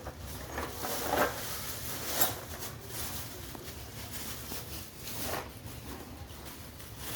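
Hands handling hard objects: scattered light knocks and rustling, with two sharper knocks about one and two seconds in, over a low steady hum.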